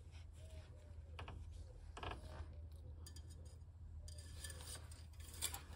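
Faint clicks and scrapes of a metal engine oil dipstick being handled and slid back into its tube, a few scattered taps over a low steady hum.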